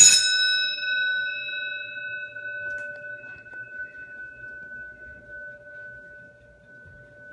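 Edwards Adaptabel 6-inch 120-volt school bell gong struck once, then ringing on with a clear metallic tone that slowly fades.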